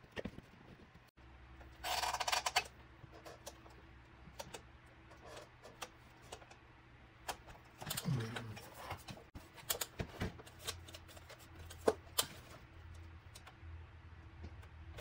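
Scattered light clicks and taps from handling tools and saxophone parts on a repair bench, with a short burst of scraping about two seconds in.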